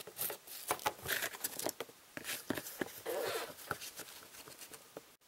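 Plastic Littlest Pet Shop figure tapped along a hard floor by hand to mimic walking: a run of light, irregular taps that grow fainter towards the end.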